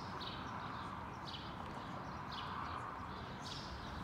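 Quiet open-air ballpark ambience: a steady faint background hiss with short high chirps about once a second.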